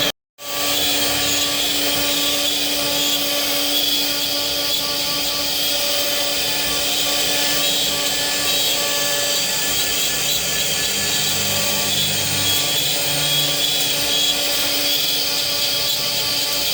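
CNC router spindle running steadily with a high whine while its bit cuts wood, over a rough cutting noise. The sound cuts out for a split second right at the start.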